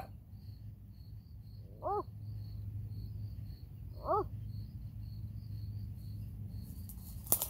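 Short wolf-howl imitations by a person: a loud yip right at the start, then two fainter rising-and-falling yips about two seconds apart, over steady cricket chirping. A crunch of dry grass underfoot comes near the end.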